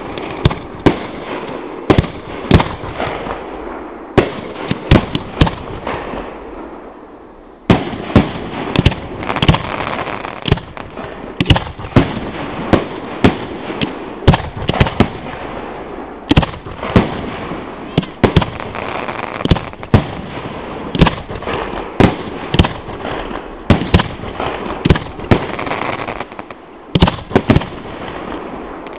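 Fireworks display: a rapid series of sharp bangs over continuous crackling. About a quarter of the way through, the crackling fades for a moment, then the barrage resumes abruptly.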